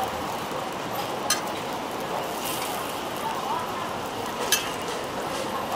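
Banana and egg roti frying on a flat griddle: a steady sizzle, with a metal utensil clicking sharply against the pan twice.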